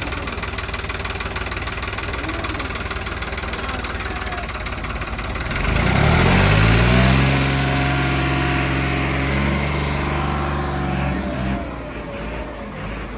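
Tractor diesel engine idling steadily. About six seconds in it revs up sharply and holds at high revs for about five seconds, then drops back toward idle near the end.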